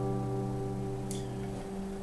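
Last strummed chord of an acoustic guitar ringing out and slowly dying away at the end of the song.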